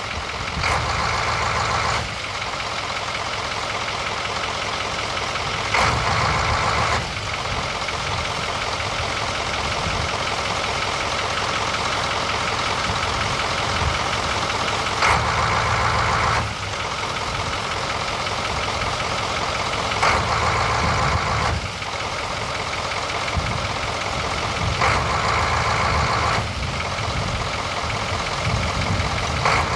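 Utility bucket truck's engine running to power the hydraulic boom and material-handler arm. It grows louder for a second or so six times, each time starting and stopping abruptly.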